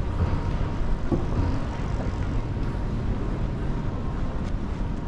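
City street ambience: a steady low rumble with no distinct event standing out.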